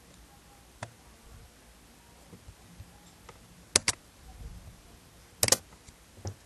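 Sharp computer pointer-button clicks: a single click, then a quick double click near the middle, another quick double click about a second and a half later, and a last single click near the end, over a faint room hum.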